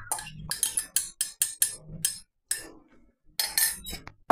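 A metal utensil clinking rapidly, about five taps a second, against a ceramic mug as beaten egg is scraped out into a mixing bowl, stopping after about two seconds. A few scrapes and knocks of a wooden spoon in a plastic bowl follow near the end.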